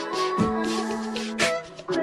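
Background music: a love song, with a short dip in level near the end.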